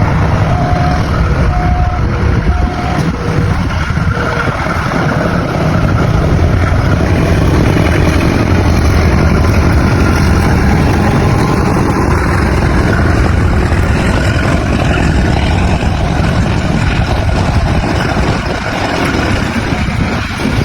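Passenger train passing close by with a loud, steady rumble of wheels and running gear. Short horn notes sound a few times in the first three seconds.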